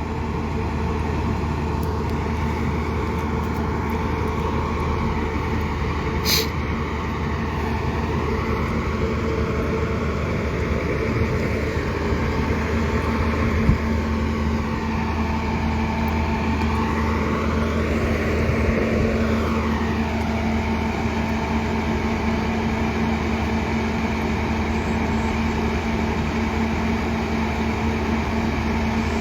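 Diesel engine of heavy construction machinery running steadily at a concrete pour, with a brief sharp hiss about six seconds in.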